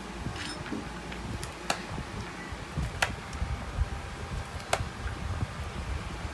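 Kitchen knife chopping chili peppers on a plastic lid, the blade giving a handful of sharp, irregular clicks against the plastic.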